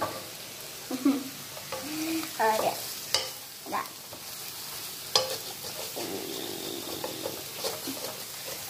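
Wooden spatula stirring and scraping scrambled egg and sliced sausage around a wok, over a steady sizzle of frying. Irregular scrapes and knocks of the spatula against the pan.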